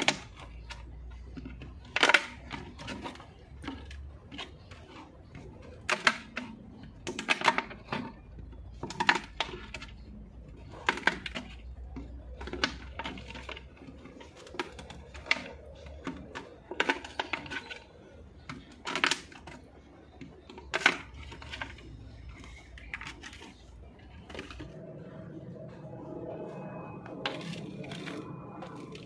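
A utility knife cutting through thin plastic water bottles, the plastic giving sharp cracking snaps about every second or two.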